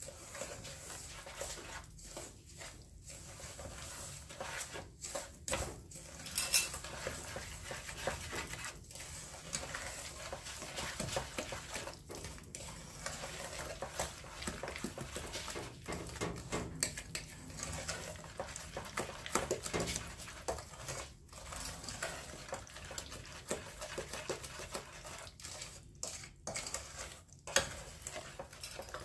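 Stirring a mix of apple compote, lemon juice and sugar in a saucepan, the utensil scraping and clinking irregularly against the pan.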